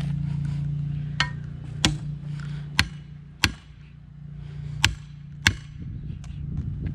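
Six sharp metal strikes in three pairs, each pair about two-thirds of a second apart, as a steel safe's door is hammered and pried with a crowbar to force it open, over a steady low hum.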